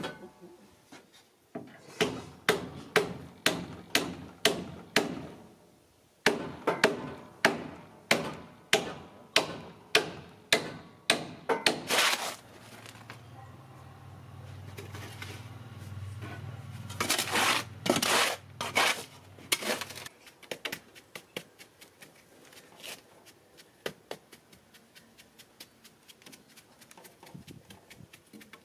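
Repeated hammer blows, evenly spaced at about two a second, with a short break, then a low steady hum with a few more loud knocks, and fainter light tapping near the end.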